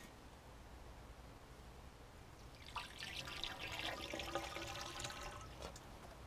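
Water pouring from a plastic jug into welded steel cooling tubes, splashing and dribbling for about three seconds from roughly halfway through: a fill test showing whether the welds are watertight.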